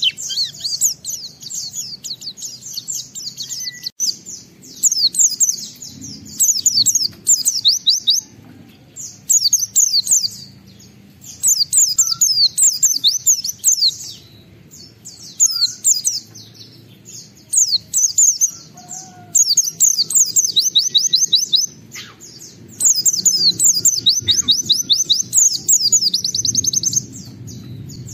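A pleci (white-eye) in vigorous song, pouring out rapid high twittering phrases of one to two seconds each with short pauses between, over a faint low hum.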